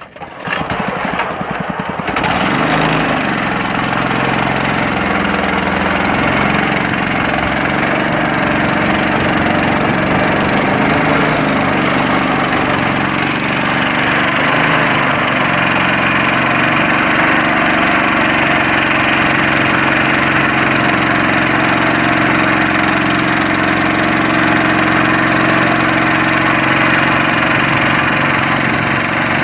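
Boat engine starting, catching about two seconds in, then running steadily and loud, its pitch wavering for a few seconds in the middle.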